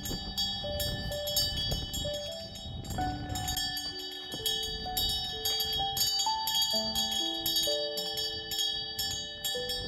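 Gentle instrumental music: a slow melody of held, bell-like notes stepping up and down, over steady high ringing tones and light, regular jingling strikes. A low rumbling haze sits under it for the first three seconds.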